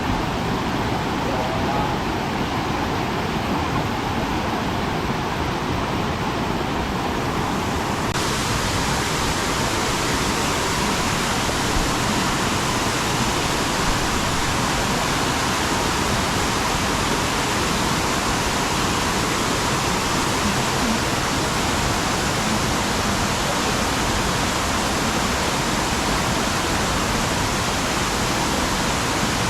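River water rushing, a steady even noise; about eight seconds in it turns brighter and hissier.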